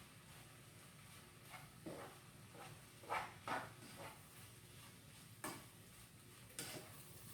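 A few faint, sharp clicks and knocks of kitchen items being handled, about five spread over several seconds, the loudest a close pair about three seconds in.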